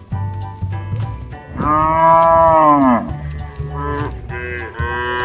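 A cow mooing: one long moo about one and a half seconds in that drops in pitch as it ends, then a second moo starting near the end.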